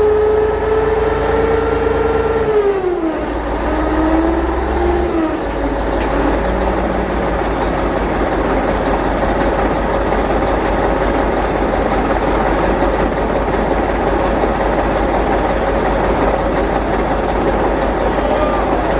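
Heavy vehicle engine running, with a whine that drops in pitch about two and a half seconds in and fades out, then steady engine noise.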